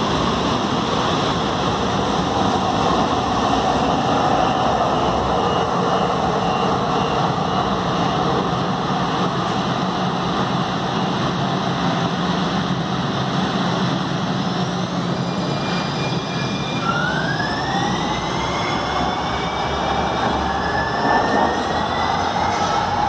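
Muni Metro light rail train in an underground station: a steady rumble and hum, then from about two-thirds of the way through a rising whine from its electric traction motors as it pulls away and speeds up.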